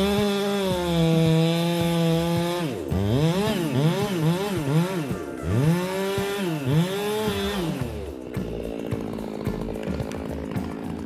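Chainsaw engine running at high revs, held steady for a few seconds and then revved up and down several times in quick succession, settling into a lower, rougher sound near the end.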